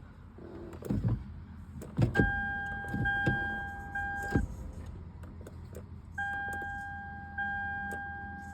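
A 2007 Lexus IS350's electronic warning tone sounds steadily in two spells, with several sharp clicks around it. No engine cranking is heard, as fits the car's no-crank, no-start fault.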